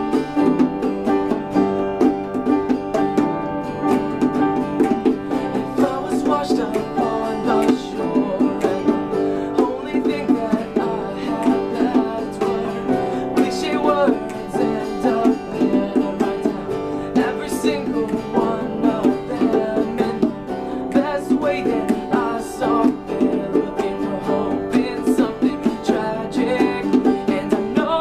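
Acoustic song played live on plucked string instruments, with a voice singing over the picking.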